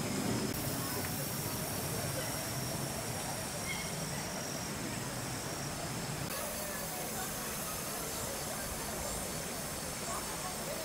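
Outdoor background ambience: faint, distant human voices over a steady hiss, with a low rumble that stops about six seconds in.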